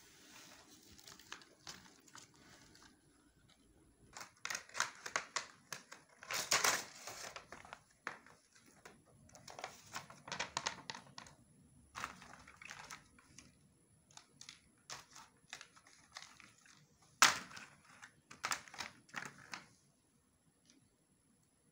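Clear plastic wrapping crinkling in irregular bursts as a child handles and pulls at it, with one sharp click about three-quarters of the way through.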